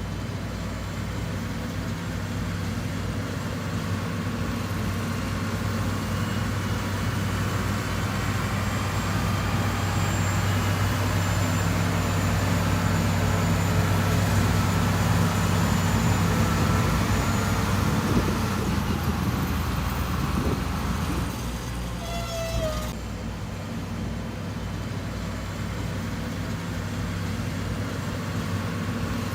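Diesel engine of heavy earthmoving machinery running steadily. It swells louder through the middle and drops back about two-thirds of the way in, with a faint higher whine on top.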